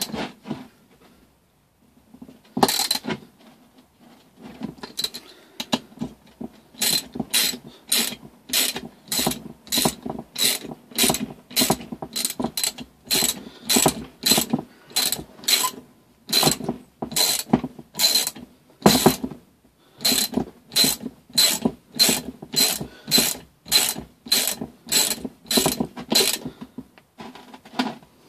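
Ratchet wrench clicking in steady back-and-forth strokes, about two a second, as bolts on a small 3 hp engine are tightened down. There are a few single strokes first, then a long even run with a short break midway.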